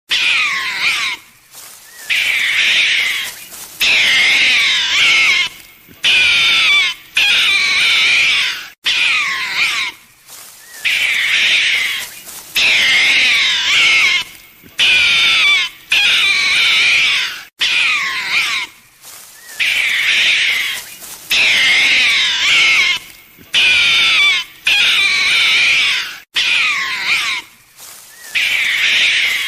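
An animal's loud, high-pitched calls, repeated again and again, each lasting a second or two with a wavering pitch and separated by short breaks.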